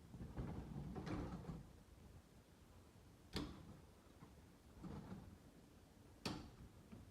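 Sectional garage door, hand-pulled along its new tracks and rollers, rumbling for about a second and a half, then two sharp knocks about three seconds apart.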